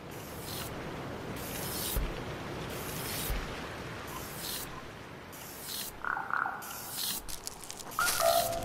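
Steady rustling hiss with a string of short hissing swishes about every second, like tall grass stirring; a couple of short chirps come about six seconds in, and music begins near the end.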